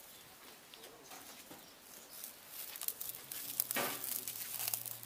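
Wood fire crackling inside a brick grill chamber, with many small sharp pops and a louder knock about four seconds in.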